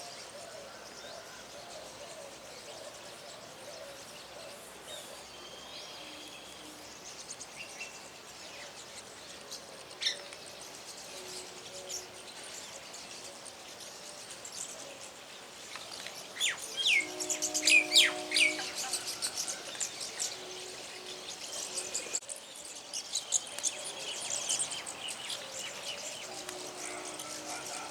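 Small birds chirping and calling in short high notes, with a loud flurry of rapid calls about two-thirds of the way through and more chirping near the end.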